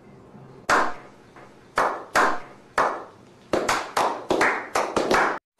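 Hand claps from a small group, a few slow, spaced claps at first, then quicker and closer together for the last two seconds before stopping suddenly.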